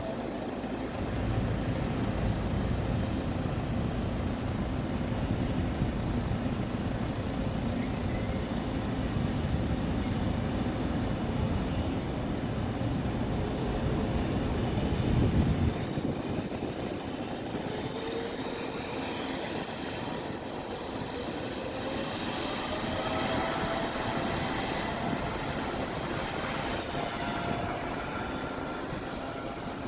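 Emirates Boeing 777's jet engines heard from beside the runway. A low rumble for about the first fifteen seconds cuts off suddenly. Then a whine of several tones rises slowly in pitch as the engines spool up, typical of thrust coming up for the takeoff roll.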